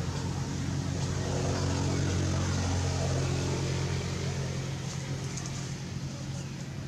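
A motor vehicle's engine running with a steady low hum, growing louder about a second in and easing off after about four seconds.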